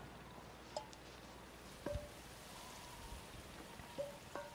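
Faint metallic clinks, about six of them scattered a second or so apart, over a soft steady hiss: tin cans hung from tree branches tapping together.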